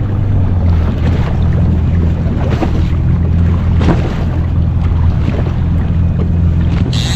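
Yamaha jet ski engine running steadily, with water splashing along the hull and wind buffeting the microphone.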